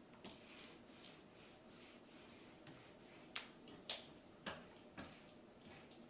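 Faint sounds of painting with a small paint roller: a soft, intermittent hiss, then four sharp ticks about half a second apart in the second half.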